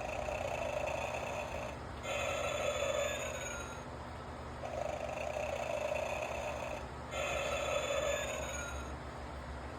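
Gemmy animated Snoring Santa toy playing its recorded snoring: rasping snores with high whistling tones, repeating about every two and a half seconds, four times, over a low steady hum.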